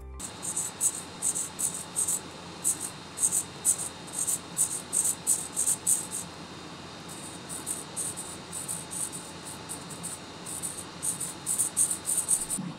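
Small hobby servos of a 3D-printed pan-tilt camera gimbal whirring in short, high-pitched bursts as they are driven back and forth from the radio transmitter's sticks, with a brief pause about halfway. The servos are being checked through their range during setup.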